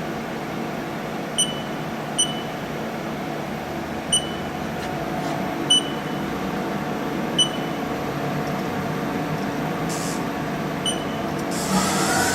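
Haas CNC control keypad beeping: six short, high beeps spaced a second or two apart over the steady hum of the idle mill, as the handle jog is set up. Just before the end an axis servo starts to whine as the table begins to move.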